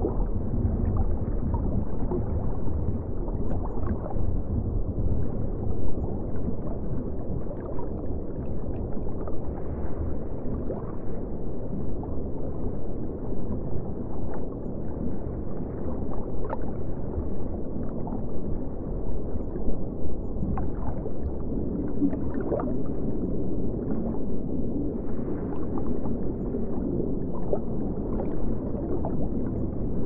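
Deep-sea underwater ambience: a steady low rumble of deep water, with brief faint sounds rising out of it every few seconds.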